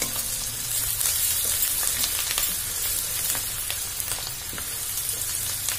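Chopped onion and green chilli sizzling in hot oil in a metal kadhai, a steady hiss, with a wooden spatula stirring and scraping against the pan in short clicks now and then.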